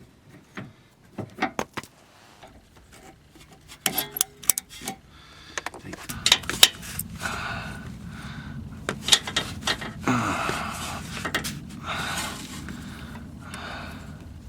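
Hand tools and steering parts clinking and knocking against metal, a series of separate clicks at first. From about halfway through it turns into a busier stretch of scraping and rubbing with more clinks, as the tie rod and its boot are worked on by hand.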